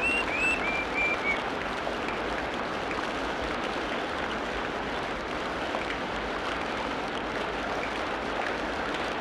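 Steady rushing water noise of a nature ambience, with a bird's string of short, clear chirps in the first second or so.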